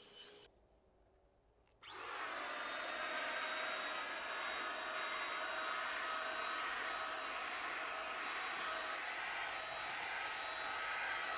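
Total TT3506 electric paint spray gun switching on about two seconds in, then running steadily: rushing air with a constant motor whine.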